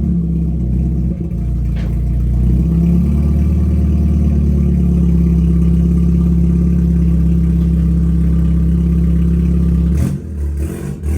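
BMW 428i's turbocharged four-cylinder engine running through an AWE axle-back exhaust at a steady idle. The engine note rises slightly about three seconds in and holds, then dips and wavers briefly near the end.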